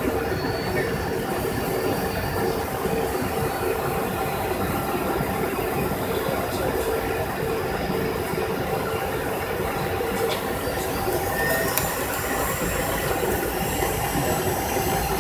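Airliner cabin noise on the approach to landing: the engines and rushing air make an even, steady noise with a steady hum underneath.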